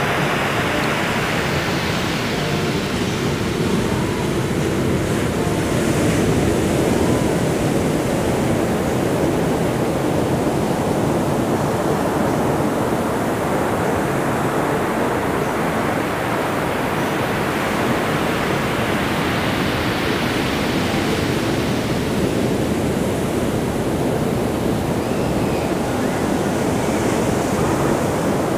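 Large storm-swell waves breaking and washing up a sandy beach: a steady rush of surf, swelling and easing slowly with no pauses.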